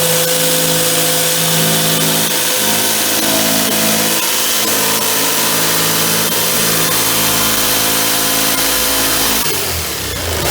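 Electric jigsaw cutting through a plastic 25-litre barrel, its motor running at a steady whine. Near the end the motor slows down briefly and then speeds back up.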